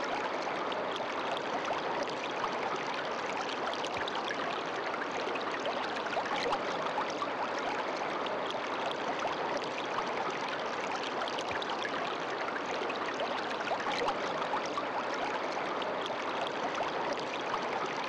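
Running water of a stream, flowing steadily.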